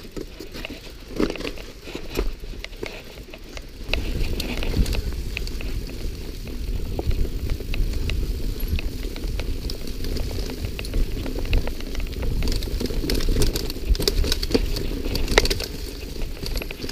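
Mountain bike riding fast down a dirt woodland trail: wind buffeting the camera microphone as a low rumble that jumps louder about four seconds in, with the tyres on dirt and frequent sharp rattles and clicks from the bike jolting over bumps.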